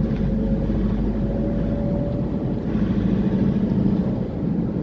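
Steady road noise of a vehicle cruising at speed on an expressway: engine hum and tyre rumble with no sudden changes.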